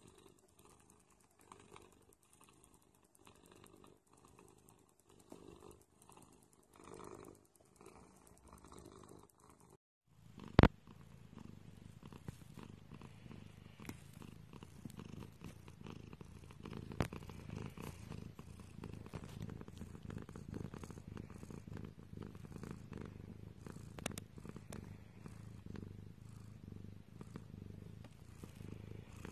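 Domestic cats purring close to the microphone. A soft, pulsing purr is followed, after a short break about ten seconds in and one sharp knock, by a second cat's louder, lower purr, with a couple of smaller knocks later on.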